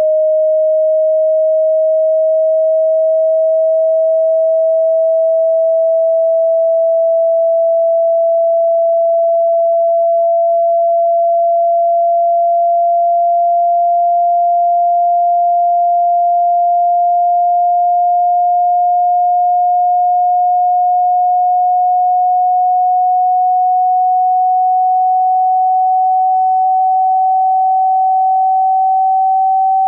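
A single pure sine tone, loud and steady, slowly gliding upward in pitch. It is part of a frequency sweep played through a wet loudspeaker so that the speaker's vibration drives the water out.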